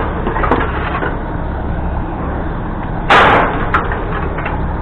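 A steady low rumble like an idling vehicle, with a few light knocks and one short, loud crash of scrap about three seconds in.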